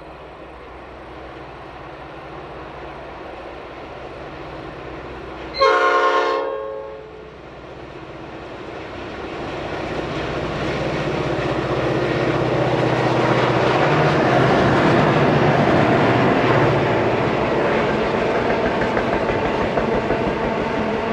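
Two 81-class diesel-electric locomotives working hard up a grade with a heavy train, their engine rumble growing louder as they approach and pass. One short blast of the locomotive's horn about six seconds in, then the noise of the wagons rolling past with wheels clicking over the rail joints.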